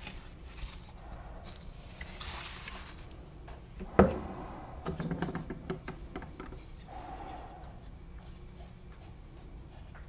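Hands working at a cardboard-covered bench. There is some rustling, then one sharp knock about four seconds in, the loudest sound, and a quick flurry of small taps and clicks as a foam stain brush is picked up.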